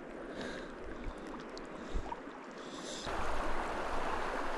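River water running: a soft rush with a few faint ticks and splashes, which about three seconds in becomes a louder, fuller rush of flowing water.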